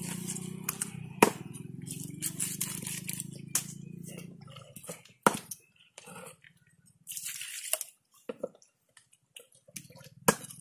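A heavy knife chopping a large pangasius fish into pieces on a wooden stump block: sharp chops every second or two. A low steady hum sits under the first four seconds and then stops.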